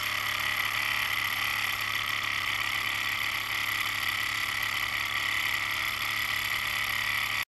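Small homemade glass beta Stirling engine with a free displacer piston running steadily at about 2,000 rpm.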